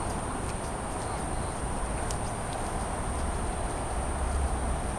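Outdoor city night ambience: a steady low rumble of distant traffic that swells slightly near the end, under a continuous thin high-pitched whine and a few faint clicks.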